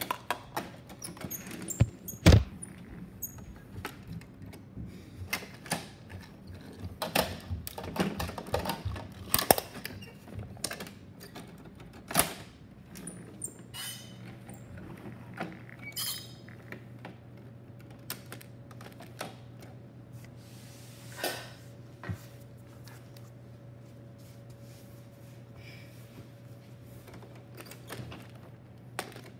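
Scattered clicks and knocks of a plastic Bruder toy garbage truck being handled and moved on a wooden floor, with a heavier thump about two seconds in. The knocks thin out after about halfway, when a low steady hum comes in.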